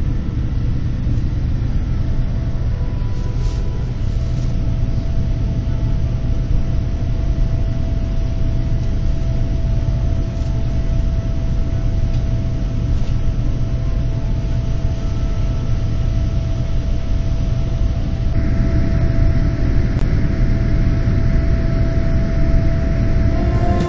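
Cabin noise of a Boeing 787-9 jet airliner in flight: a steady, loud rumble of engines and airflow with a constant whine. About three-quarters of the way through it turns louder and hissier.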